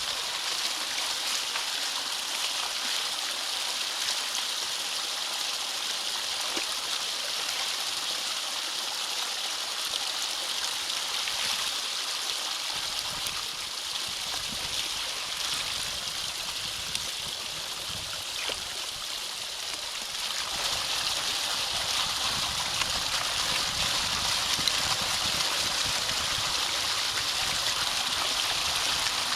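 Water rushing and gurgling steadily through a drainage ditch culvert blocked by a beaver dam, growing louder and deeper about two-thirds of the way through.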